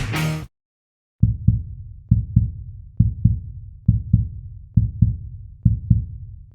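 Rock music cuts off about half a second in. After a brief gap, a heartbeat sound effect starts: low double thumps, 'lub-dub', repeating a little faster than once a second.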